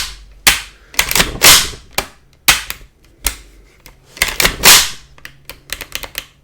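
A series of sharp metallic clacks and clicks from an HK MP5 with a .22 LR conversion kit fitted, its action worked by hand to check that it functions after assembly. The clacks come singly and in quick clusters.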